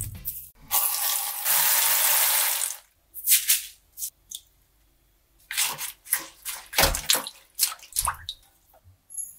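Water running steadily into a stainless steel bowl in a sink for about two seconds, then irregular splashing and sloshing as lettuce leaves soaking in the water are stirred and swished around.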